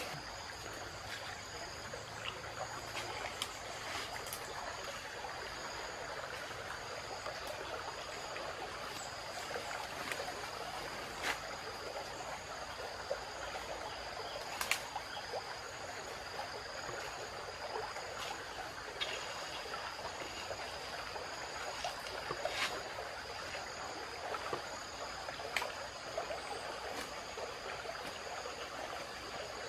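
Forest ambience: a shallow stream trickling steadily under a constant high drone of insects, with a few scattered light clicks and snaps.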